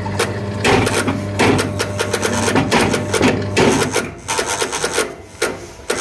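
LG top-load washing machine's drain motor running with a steady electrical hum, over rapid irregular clicking and rattling from its rusty lever mechanism. The motor is too weak to pull its lever fully to the end. The clicking eases off briefly about four seconds in and again near the end.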